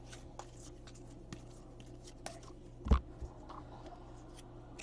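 Trading cards being handled at a table: faint scattered clicks and slides, with one louder knock about three seconds in, over a faint steady hum.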